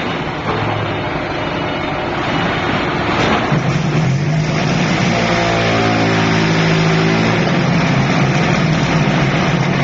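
QT10-15D fully automatic concrete hollow block making machine running: loud, steady mechanical noise, with a deeper hum that swells in about three and a half seconds in and holds.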